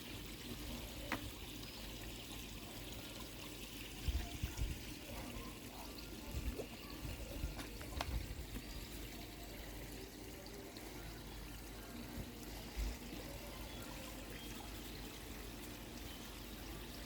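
Koi pond water pouring and trickling steadily, as from the pond's filter return or waterfall, with a few brief low thumps.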